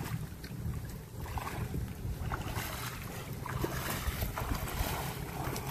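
Wind rumbling on the microphone, with water splashing and sloshing around a person's legs as he wades through shallow water.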